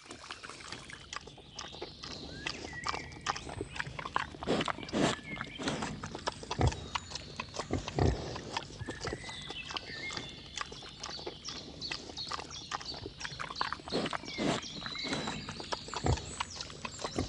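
Several wild boar feeding on grain scattered on the ground, rooting and chewing, with a dense, irregular run of crunches and clicks.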